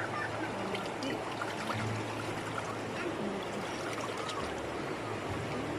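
River water flowing steadily, an even rushing hiss.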